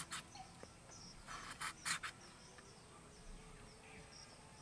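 A knife cutting into a raw peeled potato held in the hand: a few short cutting sounds, one at the very start and a cluster between one and two seconds in.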